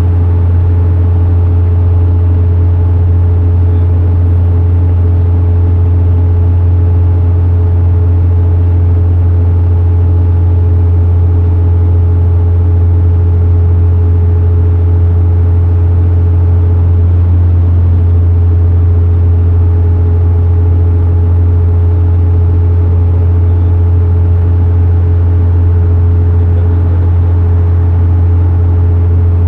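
Vehicle cabin drone from the inside while riding in traffic: a loud, steady low hum of engine and road noise that stays at one pitch, with a faint steady whine above it.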